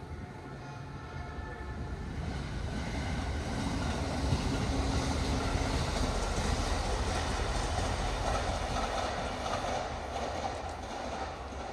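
A train passing close by: the rumble and rail noise build over about four seconds, hold loud for several seconds, then fade toward the end.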